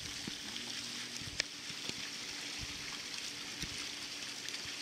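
Bonfire burning: a steady hiss with a few faint pops, the sharpest about a second and a half in.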